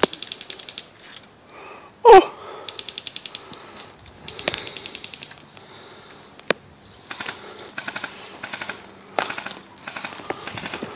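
Airsoft guns firing rapid full-auto bursts, several trains of fast ticks each lasting about a second, with a few single shots between them. About two seconds in there is one very loud, brief sound that falls in pitch.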